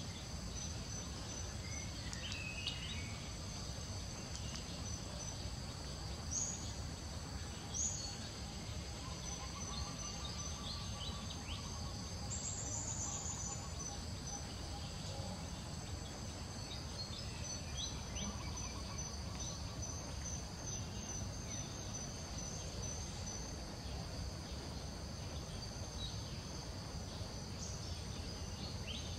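Steady high-pitched chorus of insects chirring, with a low rumble beneath and a few brief chirps, the loudest two close together a little after six seconds in.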